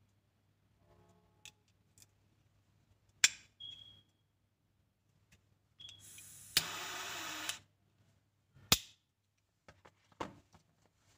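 Gold clock-face butane torch lighter being worked: metal clicks of the lid and mechanism, then a sharp ignition click and about a second of jet-flame hiss that cuts off. Further sharp clicks follow as it is handled.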